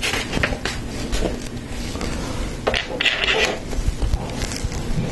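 Plastic Lego Technic pieces clicking and clattering as they are handled and pushed together, with a short burst of rattling about three seconds in.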